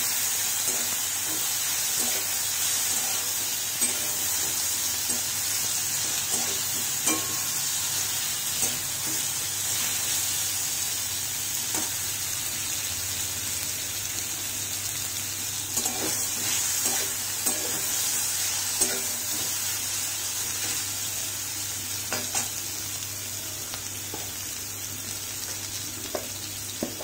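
Boiled potato and bitter gourd pieces sizzling in hot mustard oil in a steel kadai over a low gas flame. A steel spatula scrapes and taps against the pan every few seconds as they are stirred. The sizzle eases slightly toward the end.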